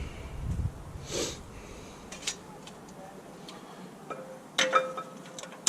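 New steel-backed brake pads being slid into a front disc brake caliper: scattered light metal clicks and taps, then a sharper metallic knock near the end that rings briefly.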